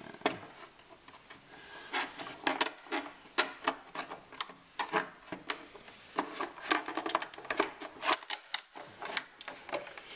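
A forked metal trim tool and a screwdriver prying and scraping at the hard plastic edge of a Range Rover Sport lower glove box, making an irregular run of sharp clicks, taps and scrapes.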